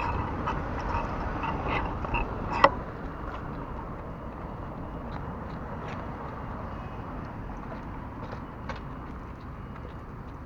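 Riding a bicycle along a city street: steady wind and road noise with sharp clicking creaks from the bike, about twice a second at first, the loudest about two and a half seconds in, then only now and then. The creaking is the bicycle saddle creaking.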